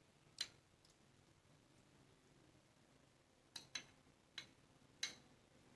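A spoon stirring sweet corn kernels in a ceramic bowl: a handful of faint, short clicks as the spoon knocks the bowl, one about half a second in and the rest clustered in the second half, with near silence between.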